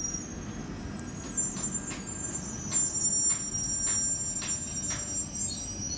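London Underground Northern line 1995 Stock train coming into the platform. There is a steady high-pitched squeal with a rising sweep near the end, and regular wheel clacks about every half second over a low rumble.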